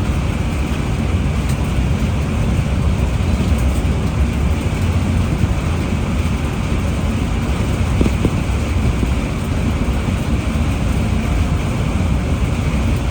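Car driving on a rain-wet highway: steady road and wind noise with a low rumble.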